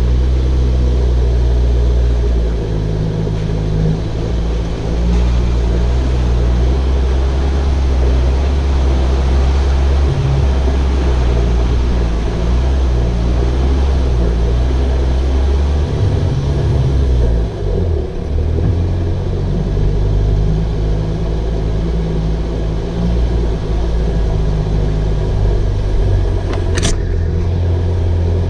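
Toyota Fortuner four-wheel drive's turbo-diesel engine running as it drives slowly over a rough forest dirt track, a steady low rumble of engine and tyres. A brief sharp tick comes near the end.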